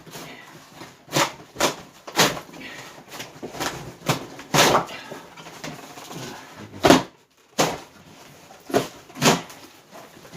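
Cardboard mattress box being pulled back and torn open by hand: a series of short, irregular scraping and tearing noises, one or two a second.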